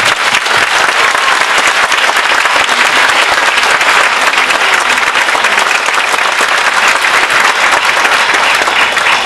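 A congregation applauding: dense, steady clapping from many hands.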